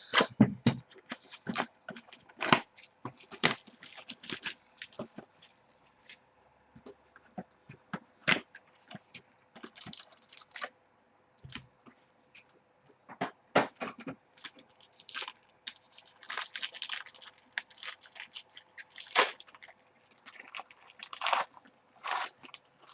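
A sealed box of football trading cards being opened by hand: plastic wrap and pack wrappers crinkling and tearing in irregular crackles and rustles, with short pauses.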